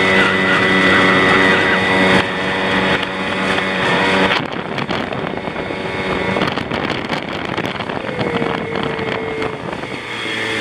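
Outboard motor driving an inflatable boat at speed, a steady engine hum with water rushing along the hull. About four seconds in, the hum sinks under rougher wind buffeting on the microphone.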